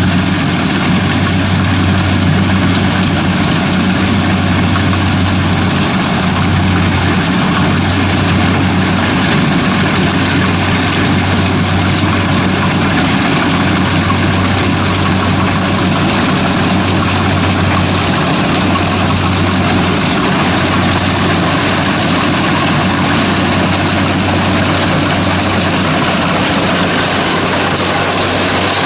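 Kubota DC-60 combine harvester's diesel engine and threshing machinery running steadily while cutting rice, with a few brief dips in the engine hum.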